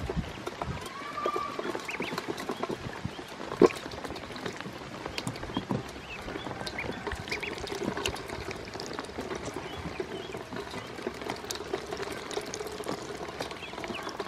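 Ducklings splashing and dabbling in water in a stainless steel bowl, with many small clicks and taps and short, soft peeps. One sharper knock comes about three and a half seconds in.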